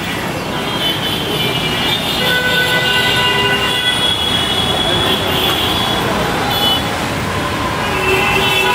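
Mi-171Sh transport helicopter passing slowly: a steady rushing of its rotor and twin turboshaft engines, with high steady tones that come and go.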